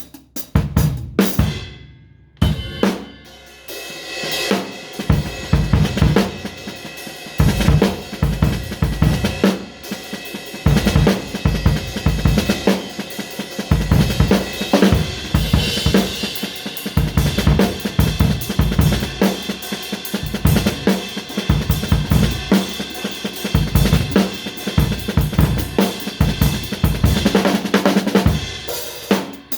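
Drum kit being played freely: kick drum, snare, hi-hat and cymbals in a busy, loud pattern, easing off briefly about two seconds in before picking up again.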